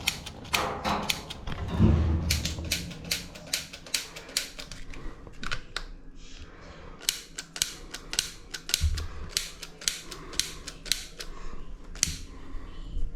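A furnace pilot igniter clicking over and over, sharp irregular clicks about two a second, as a technician tries to light the pilot; a couple of dull low thumps come in between.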